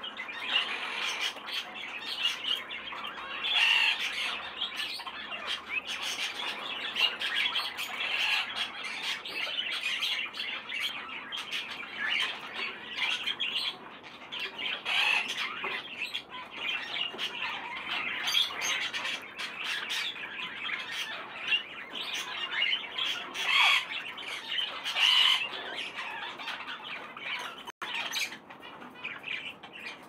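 Many caged parrots and finches calling at once: a continuous mix of squawks and chirps, with sharper, louder calls standing out now and then.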